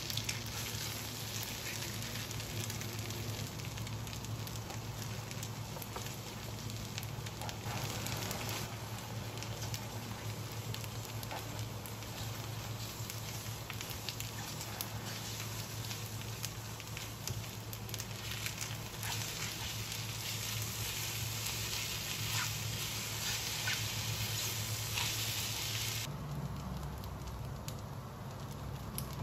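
Food sizzling and crackling in a hot frying pan as egg fries among stir-fried cabbage and is worked with a wooden spatula. The hiss softens abruptly near the end.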